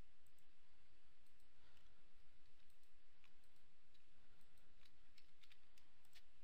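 Computer mouse and keyboard clicks from someone working at a computer: a few scattered clicks, then a cluster of several quick clicks in the second half, over a steady faint hiss.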